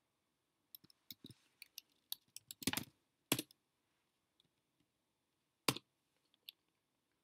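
Computer keyboard keystrokes: about three seconds of irregular key clicks, a pause, then one louder keystroke nearly six seconds in and a last faint click. The loud keystroke is the Return that enters a typed terminal command.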